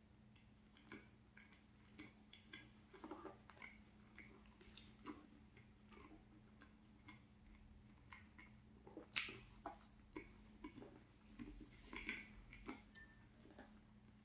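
Faint chewing of a flaky croissant pastry: scattered soft crackles and mouth clicks, with one sharper click about nine seconds in.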